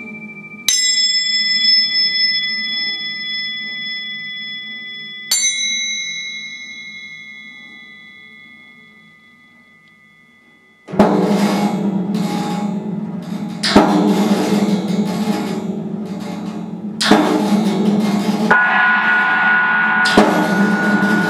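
Solo experimental percussion on a prepared set. Two struck metal instruments ring out, each a bell-like clang with several pitches that slowly fades away. About eleven seconds in, a dense rattling and scraping texture starts suddenly, with harder strikes every three seconds or so and a high ringing tone near the end.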